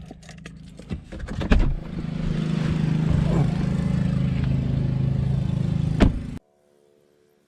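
A vehicle engine running steadily, with a few clicks and knocks in the first couple of seconds and a sharp click about six seconds in. It cuts off suddenly soon after.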